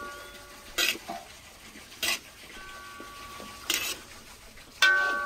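A metal utensil knocking against a metal cooking pot four times, about a second apart, some knocks leaving a short metallic ring. The last knock is the loudest and rings on.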